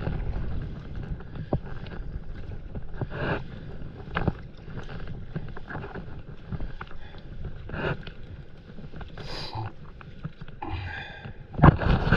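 Sea water lapping and splashing around inflatable paddleboards, with paddle strokes and handling of the net, and a low rumble of wind on the microphone. Short knocks and splashes come every second or two, with a louder cluster near the end.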